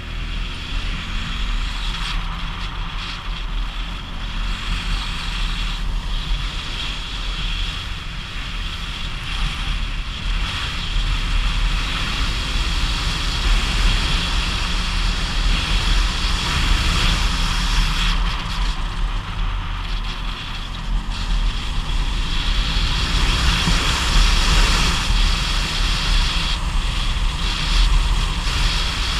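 Motorcycle engine pulling steadily uphill, with the rush of wind over the camera microphone.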